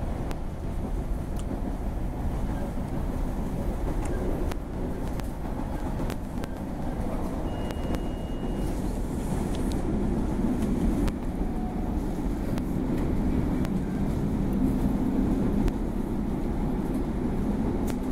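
A CTA 2600-series rapid-transit car heard from inside while running at speed: a steady low rumble of wheels and running gear. A few faint clicks are scattered through it, and a short, faint high tone comes about eight seconds in.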